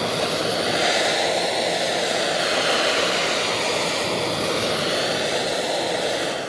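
Handheld blowtorch flame burning with a steady hiss as it heats a strip of copper flashing to anneal it.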